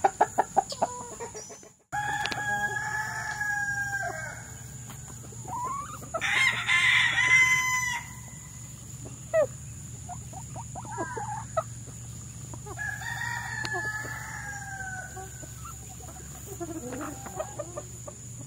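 Quail Brabanconne chickens: roosters crowing three times, the middle crow the loudest, with hens clucking in between and a quick run of clucks at the start. A steady high-pitched tone and a low hum sit underneath.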